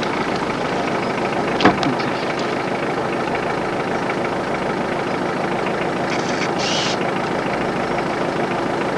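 A vehicle engine idling steadily, with a single sharp knock about two seconds in and a brief high hiss near the end.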